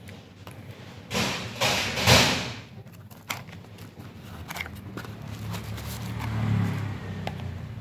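Handling and packaging noise: about two seconds of loud rustling or scraping, then a few scattered clicks and knocks.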